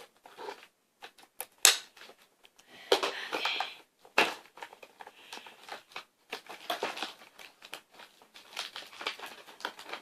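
Cardboard and plastic toy packaging being torn, crumpled and pulled apart by hand: irregular crinkling and rustling with a few sharp snaps.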